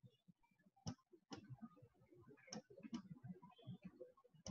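A few faint computer mouse clicks, about one a second, as the view is clicked through a virtual tour, over near silence.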